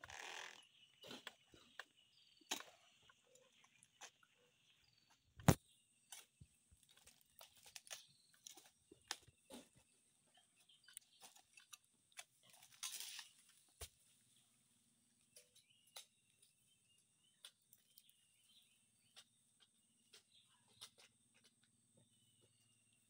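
Quiet outdoor ambience: a steady high insect drone and faint bird chirps, with scattered knocks, rustles and footsteps from someone working on foot. The loudest sound is a single sharp knock about five seconds in.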